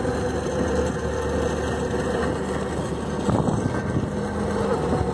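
Tow boat's motor running steadily under way, a steady drone over the rush of the wake churning behind the stern. A brief louder rush comes a little past halfway.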